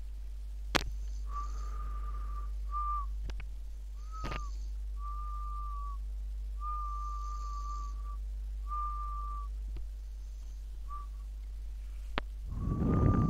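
A sleeper snoring with a whistling nose: a thin whistle at one steady pitch on each breath, repeating every second or two, with two sharp clicks in the first half. Near the end comes a louder, rough snore with the whistle in it.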